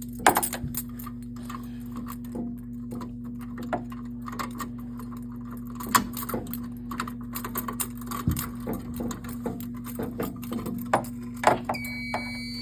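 Keys jingling and clicking against a fire alarm pull station as a key is tried in its reset lock: irregular small metal clicks and knocks over a steady low electrical hum. Near the end a steady high-pitched electronic tone starts up, the alarm system's piezo sounder.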